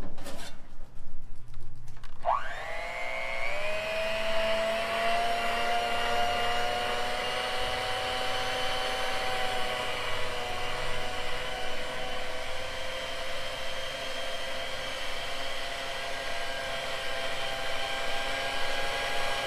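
Electric hand mixer starting about two seconds in, its whine rising as the motor comes up to speed, then running steadily as its beaters whisk jewelry-casting investment slurry in a bowl. A few knocks come just before it starts.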